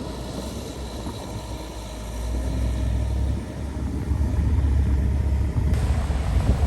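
Heavy diesel earthmoving machinery running with a low rumble, growing louder about two seconds in and again around four seconds.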